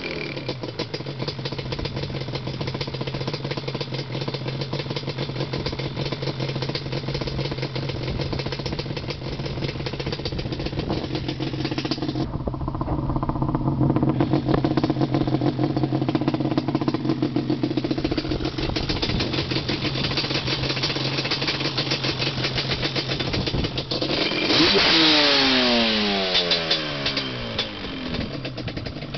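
Yamaha Banshee's two-stroke twin on Toomey T6 expansion-chamber pipes, dropping to a steady idle at the start. About twenty-five seconds in, one sharp blip of the throttle sends the revs up, and they fall back to idle.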